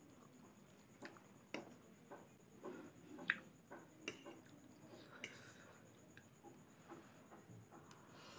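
Faint close-up eating sounds of instant noodles: slurping, chewing and soft wet mouth noises, with scattered small clicks of a fork against the plate, the sharpest about three seconds in.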